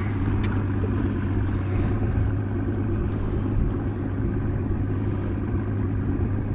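Steady low mechanical hum of a motor aboard a fishing boat, running evenly, with a faint click about half a second in.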